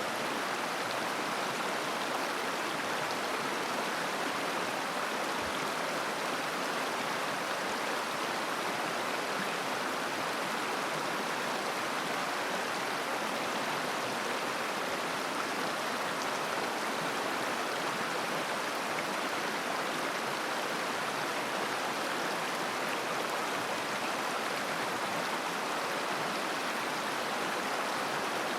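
River water flowing and babbling in a steady, unbroken rush.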